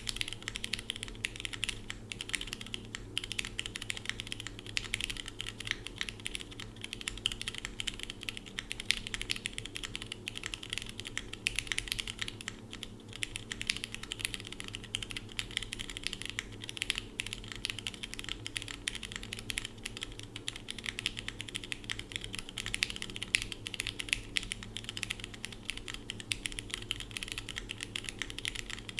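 Continuous typing on a mechanical keyboard with lubed and filmed Cherry MX Red linear switches, DCX keycaps, and an aluminium plate, friction-mounted with no foam: a dense, steady run of keystroke clacks.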